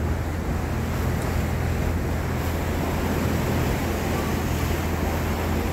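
Steady low drone of a tour boat's engine under way, mixed with a constant rush of wind and water.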